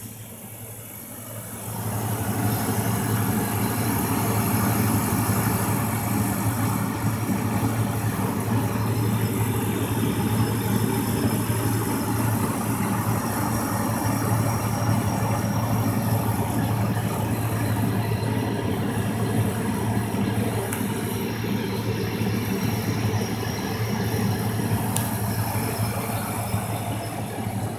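The refrigeration deck of a Crane National Vendors Focus 32 snack vending machine running: a steady compressor hum under the rush of the condenser fan, growing louder about two seconds in.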